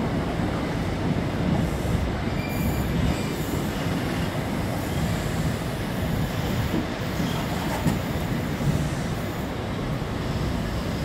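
High Speed Train's Mark 3 coaches rolling past along the platform: a steady rumble of wheels on rail, with a brief wheel squeal about two and a half seconds in.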